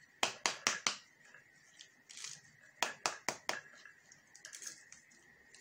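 Wooden spatula smacking the skin of a halved pomegranate to knock the seeds out onto a plate: two quick runs of about four sharp knocks, one just after the start and one about three seconds in.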